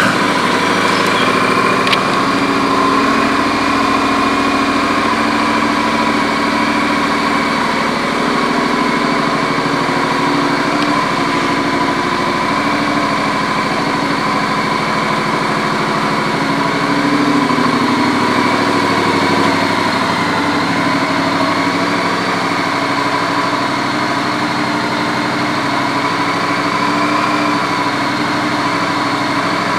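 Honda CTX700 DCT's 670 cc parallel-twin engine idling steadily through an aftermarket exhaust.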